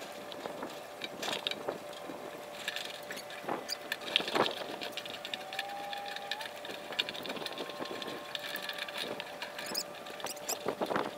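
Line being hauled through the blocks of a block and tackle to hoist a climber up a sailboat mast: irregular clicks and knocks, with a drawn-out squeak about halfway through.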